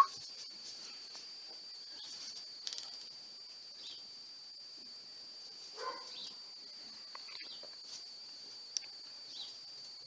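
Quiet pigeon loft: a faint steady high-pitched whine, with a few soft taps and rustles as pigeons peck at a grain feeder, and one brief low sound about six seconds in.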